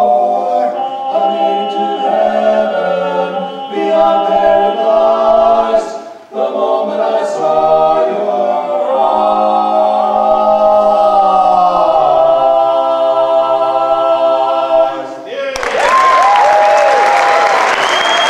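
Barbershop quartet of four men singing a cappella in close four-part harmony, closing on a long held chord that cuts off about fifteen seconds in. Loud audience applause and cheering break out straight after.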